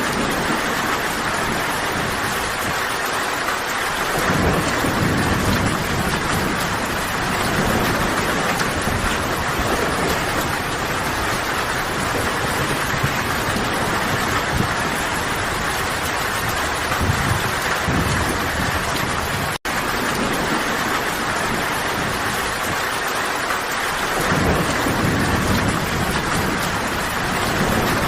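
Steady, heavy rain falling, with low rumbles swelling and fading several times. The sound cuts out for an instant about two-thirds of the way through.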